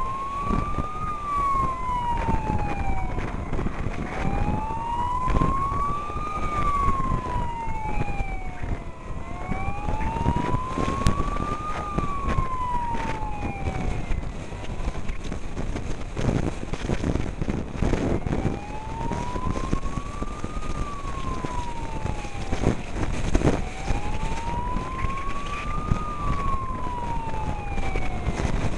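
Fire service emergency siren in a slow wail, rising and falling about every five and a half seconds, dropping out for a few seconds midway. A second, fainter and higher siren sweeps over it at times, with steady road and wind noise of the moving convoy underneath.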